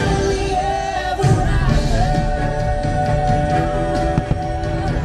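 Fireworks show soundtrack playing loudly: music with singing and long held notes over a full, steady low end.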